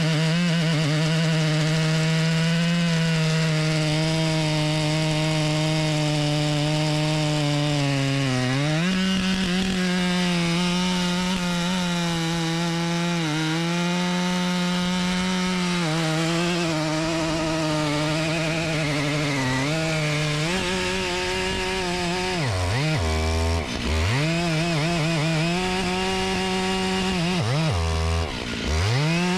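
A large chainsaw running at full throttle while cutting through wood, its engine pitch sagging and recovering under load. About 23 and 28 seconds in it briefly drops toward idle, then revs straight back up.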